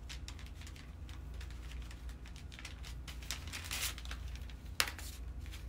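Faint handling noises of light rustles and scattered small clicks, with one sharper click near the end, over a steady low hum.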